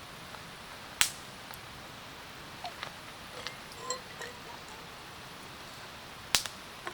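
Wood campfire crackling: two sharp pops, one about a second in and one near the end, with a few lighter snaps in between over a steady hiss.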